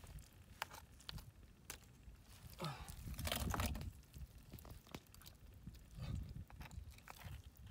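Hands squelching through wet mud and freshwater snail shells clicking against each other as they are scooped up: a scatter of small clicks and crunches, with a louder scraping stretch about three seconds in.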